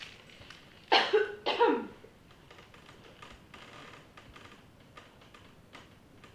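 German Shorthaired Pointer licking, with faint wet clicking throughout. About a second in, two loud cough-like sounds come in quick succession.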